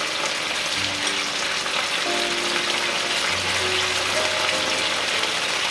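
Smoked pork chops sizzling in melted butter in a hot skillet as they brown, a steady hiss. Background music with held notes plays underneath.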